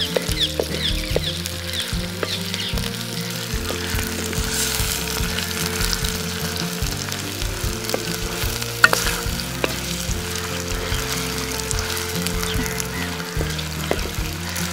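Curry sizzling in a pan as it is stirred, with a spoon clicking against the pan now and then; the sharpest clack comes about nine seconds in.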